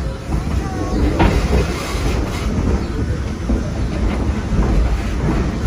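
Steam train, hauled by the Thomas A. Edison coal-fired steam locomotive, rolling slowly: a steady low rumble of the cars with scattered light clicks of the wheels on the rails, heard from the open car just behind the tender.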